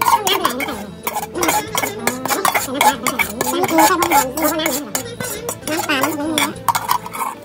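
Metal spoon scraping and clinking against a bowl as a wet fish-roe mixture is scooped out onto a banana leaf, many short scrapes and taps in quick succession. Voices can be heard underneath.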